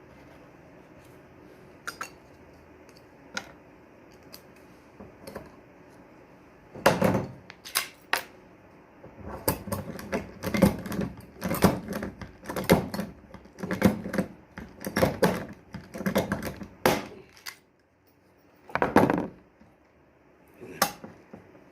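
Hand work on shower door parts: a few sharp clicks at first, then a fast, irregular run of knocks and rattles of hard metal and plastic pieces, with two more loud knocks near the end.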